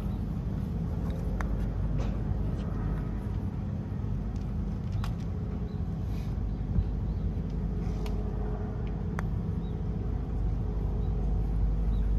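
Steady low mechanical hum, with a few faint clicks on top.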